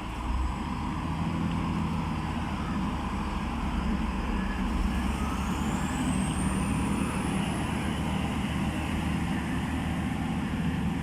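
Class 165 diesel multiple unit pulling away from a station platform, its diesel engines running under power with a steady low rumble. A high whine rises in pitch about five seconds in and then holds.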